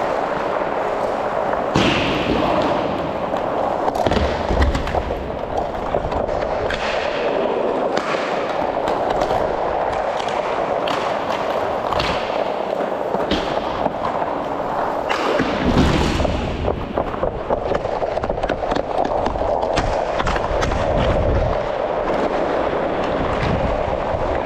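Inline hockey skate wheels rolling over a plastic-tile rink floor, with frequent sharp clacks of sticks and puck. Heavier low rumbles come a few times, loudest about sixteen seconds in.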